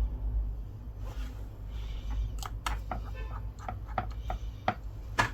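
Irregular small clicks and short scrapes of hands working on a tablet and its small parts at a repair bench, starting about a second in, over a low steady hum.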